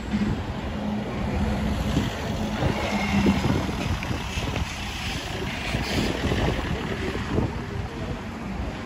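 City street traffic with wind buffeting the microphone. A steady low engine hum sits under it for the first three seconds or so, and the hiss of passing traffic swells in the middle.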